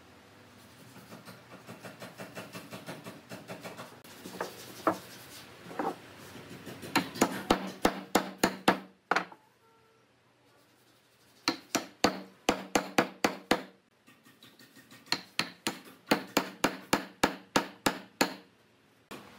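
Hammer blows on the end of round wooden posts, driving them down into glued holes in a log rail. Softer, even taps first and a couple of single ringing hits, then three runs of loud, rapid strikes at about four a second with short pauses between them.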